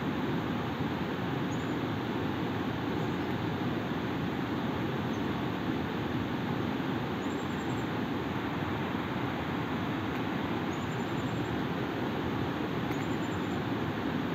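Steady rushing of a nearby river, an even, unchanging noise, with faint high chirps now and then.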